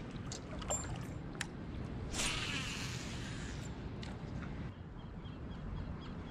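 A few light clicks of a baitcasting reel, then about two seconds in a brief whirr of the spool as line pays out on a cast, falling in pitch as it slows. A steady low rumble runs underneath.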